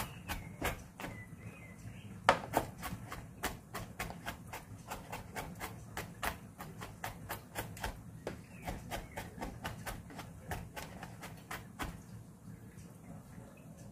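Kitchen knife chopping on a cutting board in quick strokes, about three or four a second, thinning out near the end: garlic and chilies being minced as finely as possible in place of a mortar.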